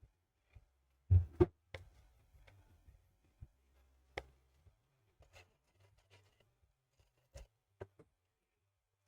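Scattered clicks and knocks of small laptop parts and tools being handled on a workbench, the loudest a quick pair of knocks about a second in, then single clicks every second or two.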